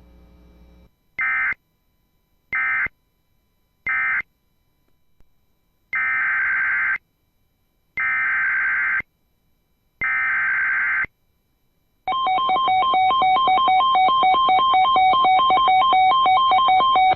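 Emergency Alert System (SAME) digital data bursts and attention tone on NOAA Weather Radio. First come three short buzzing bursts, the end-of-message code closing the previous alert. Then come three one-second screechy data bursts two seconds apart, the header of a new alert, and a loud steady alert tone starts about twelve seconds in and cuts off near the end.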